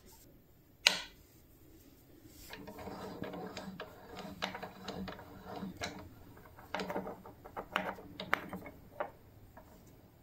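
A sharp knock about a second in, then a run of small clicks and knocks as a bloodwood block is set and shifted against the steel jaws of a drill-press machine vise.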